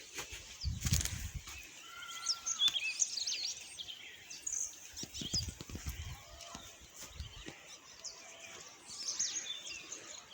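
Several small birds chirping and calling in short, quick notes that slide up and down in pitch. A few low thumps come through underneath, about a second in and again around the middle.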